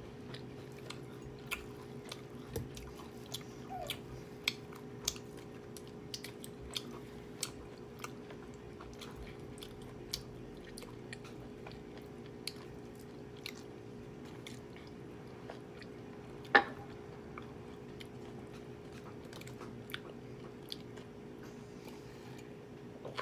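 Close-up chewing of food, with many short wet mouth clicks scattered through it and one louder sharp click about two-thirds of the way through. A steady low hum runs underneath.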